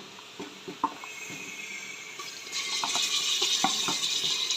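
A few light knocks of a utensil against a pot, then sizzling starts about two and a half seconds in as marinated goat meat goes into hot oil and fried onions in a pressure cooker.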